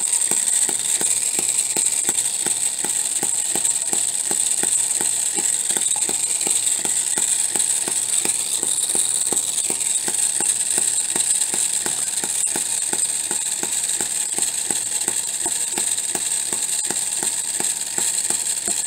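Homemade miniature four-stroke hit-and-miss engine running: it fires with a sharp pop about three times a second and coasts in between, while its governor locks the exhaust valve open. The pops sit over a steady high-pitched hiss.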